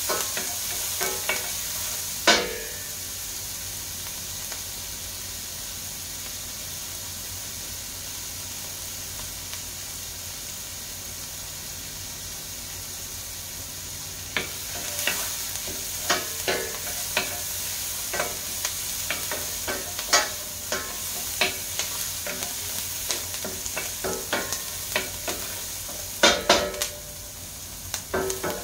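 Chopped onion and garlic sizzling in oil in a stainless steel frying pan, stirred with a wooden spoon that knocks and scrapes against the pan. The sizzle is steady; the spoon knocks come in the first couple of seconds, stop for about ten seconds, then come often from halfway on.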